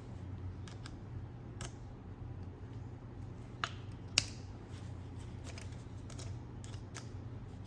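Scattered small metallic clicks and taps as steel sockets and bits are handled and fitted into a cordless impact driver's bit/socket chuck, with two sharper clicks a little past halfway, over a low steady hum.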